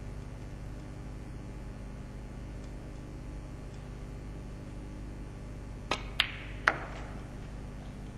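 Snooker shot: three sharp clicks within under a second, about six seconds in. They are the cue tip striking the cue ball and the cue ball hitting the green, then a third, loudest click as the green goes into the pocket. Before them there is only a steady, quiet arena hush.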